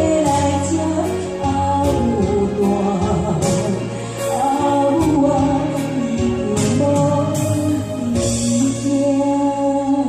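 A Taiwanese Hokkien ballad sung by a voice over backing music with bass and regular cymbal strokes.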